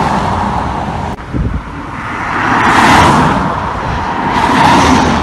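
Road traffic: cars passing close by on a main road, their tyre and engine noise swelling up and fading twice, loudest about three seconds in and again near five seconds.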